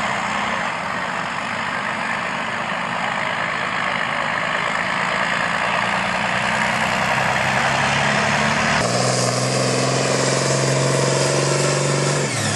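John Deere pulling tractor's diesel engine running hard under load as it drags a weight-transfer sled. About nine seconds in the sound changes abruptly to a steadier, lower engine tone.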